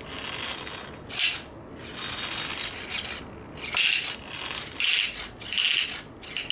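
Nitro RC car's servo-driven throttle and brake linkage rasping and scraping in about five short bursts as it is worked from the transmitter. These are odd noises that the owner suspects come from plastic rubbing against the throttle linkage.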